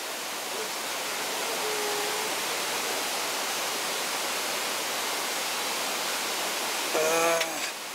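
Steady rushing of a mountain stream. Near the end a brief voiced sound from a person, the loudest moment, rises over it.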